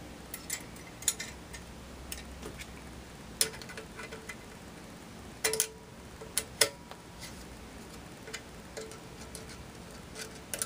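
Irregular sharp metallic clicks and ticks of a Phillips screwdriver working the screws that clamp new blades onto a commercial ice shaver's metal blade holder.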